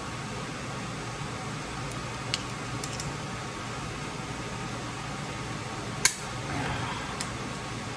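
Steady fan-like hum with a few sharp metallic clicks from tools being handled during crimping of a battery cable lug, the loudest about six seconds in.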